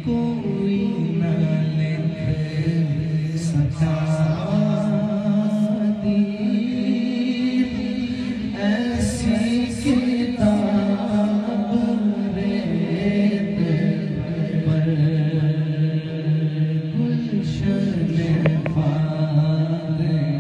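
Male voices singing a devotional manqabat a cappella through microphones, a steady low chant held for seconds at a time beneath a lead voice.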